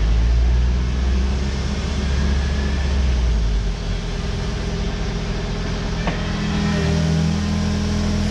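Kubota KX080 excavator's diesel engine running under hydraulic load as the bucket is held at full extension to bring the pump up to full pressure. The engine note is heavy and low for the first three and a half seconds, then eases, with a sharp click about six seconds in.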